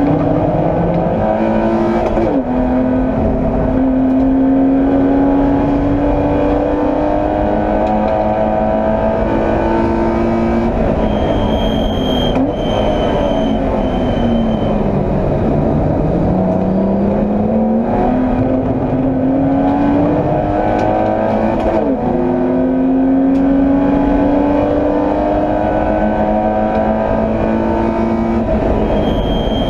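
BMW E30 325i's 2.5-litre straight-six race engine heard from inside the car at racing speed, pulling up through the gears with quick upshifts where the pitch drops sharply. About halfway the pitch falls in a long slide as the car brakes and shifts down, then climbs again through the gears. A few short high squeaks come in during the braking.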